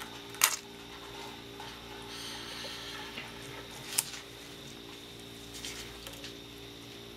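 Brake master cylinder for a 2004 Ford F-150 being bench-bled by hand, its piston stroked with a screwdriver while fingertips cover the outlet ports: two sharp clicks, about half a second in and about four seconds in, and a soft hiss in between, over a steady low hum.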